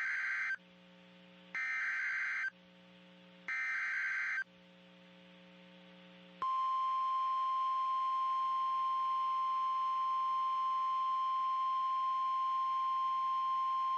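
NOAA Weather Radio Emergency Alert System signal: three short bursts of SAME digital header data about a second apart, then, about six and a half seconds in, the steady single-pitch 1050 Hz warning alarm tone that announces a warning, here a severe thunderstorm warning.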